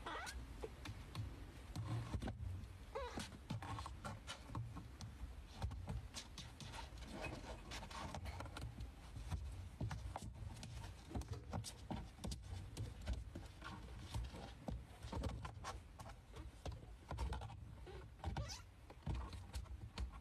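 Faint rustling and scuffling of two kittens wrestling on a fabric blanket, with scattered soft clicks and scrapes.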